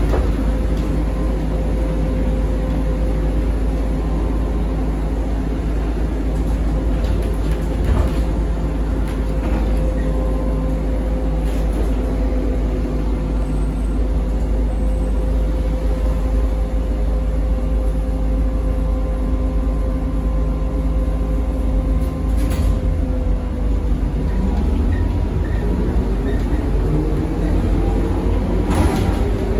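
ZiU-682V-012 trolleybus running under way with a steady low rumble and a steady electric whine, with a few knocks from the body. Near the end a rising whine sets in as the traction motor speeds up.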